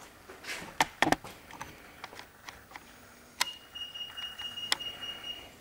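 A few sharp clicks and knocks in the first second or so, then, a little past halfway, a steady high whine that holds for about two seconds: the ProtoTrak TRM bed mill's axis drive running its ball screws to move the table under a short CNC program.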